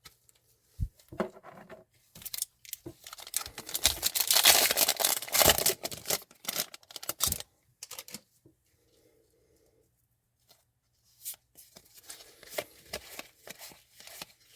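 An O-Pee-Chee hockey card pack being torn open: a few seconds of tearing and crinkling wrapper, loudest in the middle, followed by light clicks and rustles of cards being handled.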